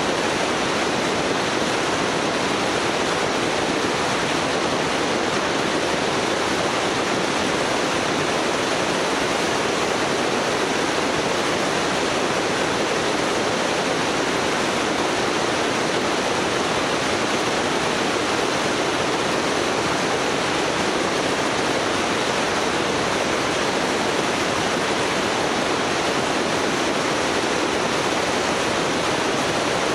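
Steady, unbroken rush of wind and road noise from travelling along a motorway at an even speed.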